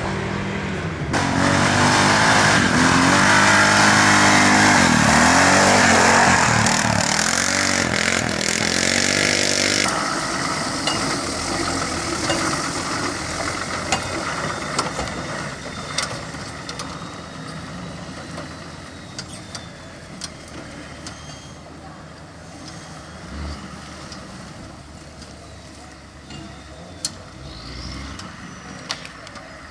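Off-road 4x4 engines working in mud: about a second in, an engine revs hard, rising and falling several times. About ten seconds in this stops suddenly, leaving a quieter engine running lower, with scattered sharp clicks.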